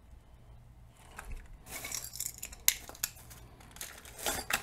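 Hands handling hard Lego plastic parts and a battery box over a thin plastic bag: soft crinkling of the bag with a scatter of sharp plastic clicks, the loudest a little under three seconds in and a quick cluster near the end.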